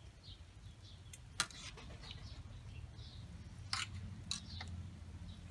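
Steel tongs clinking sharply against a metal pot and tray as boiled intestines are lifted out: three clicks, the loudest about a second and a half in, two more around four seconds in. Faint bird chirps and a low steady hum sit underneath.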